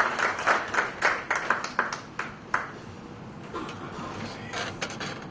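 Audience applause in a hall, dense at first and dying away after about two and a half seconds to a few scattered claps.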